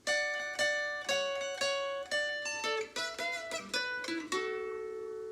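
Plucked string instrument playing a song intro: bright chords struck about twice a second, a quicker run of notes in the middle, then a last chord a little past four seconds in that is left ringing.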